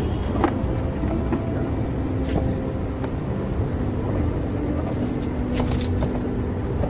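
A few sharp plastic clicks and taps as the door trim panel of a 2009 Kia Sorento is handled and pressed into place. They sound over a steady low rumble and faint held musical tones.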